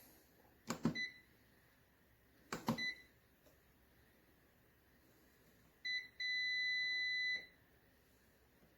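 Xiaomi Smart Air Fryer 6.5L control panel beeping: two clicks, each followed by a short high beep, then about six seconds in a short beep and a longer steady beep lasting a little over a second.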